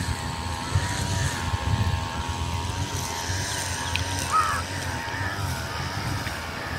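Wind buffeting the microphone, with an uneven low rumble and a faint wavering hum in the background; a short high chirp sounds about four seconds in.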